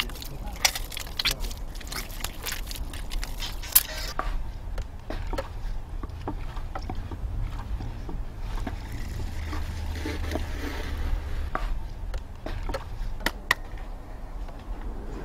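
Wet clay being worked by hand on a potter's wheel: scattered soft wet clicks and slaps, busiest in the first four seconds, over a low steady rumble.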